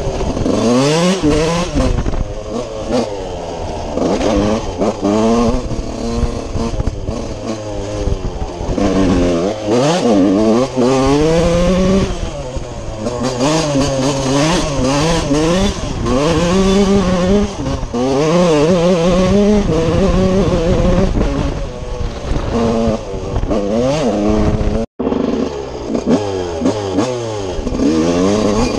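TM 125 single-cylinder two-stroke motocross engine revving hard and falling off over and over as the bike is ridden around the track, heard from on board. The pitch climbs and drops repeatedly through the gears. The sound cuts out for an instant about 25 seconds in.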